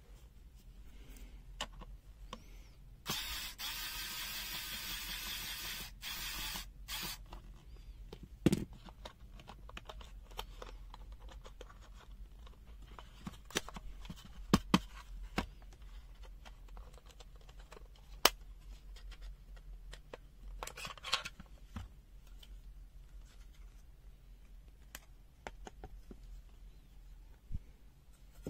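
Handling of a plastic clamp meter as it is taken apart: a rough scraping rasp lasting about four seconds near the start, then scattered clicks and taps of plastic.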